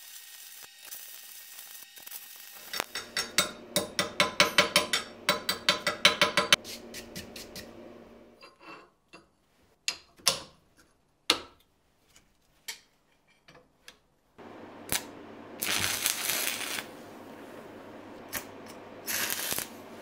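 Electric arc welding on steel: the crackling hiss of the arc over a low electrical hum, at first as a quick train of short crackling bursts, about four a second. In the middle there are separate clicks and taps of steel parts being set on the work. Near the end the arc runs again, in two louder stretches.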